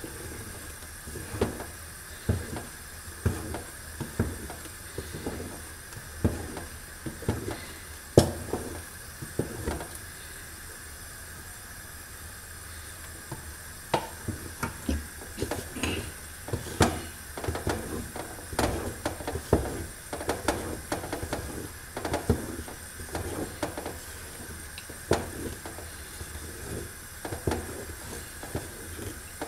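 A wooden spoon stirring a thick sesame-and-hazelnut paste in an aluminium pot, knocking and scraping against the pot about once or twice a second at an uneven pace, over a faint steady hiss.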